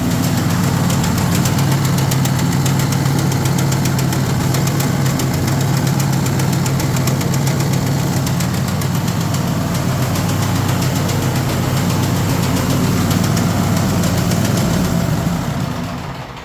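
Cub Cadet RZT 54 zero-turn mower running with a loud, rapid knocking clatter, a racket the owner blames on the drive system rather than the Kohler engine. He traces it to a drive belt with chunks torn out, which makes the idler pulley bounce and slap. The sound dies away near the end.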